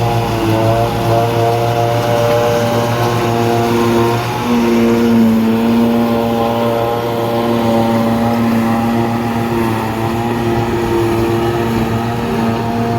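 Tractor engine running steadily under load, its pitch shifting slightly a few times.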